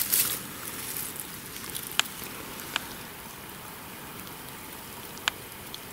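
Quiet steady background noise with three separate sharp ticks: about two seconds in, just under three seconds, and a little after five seconds.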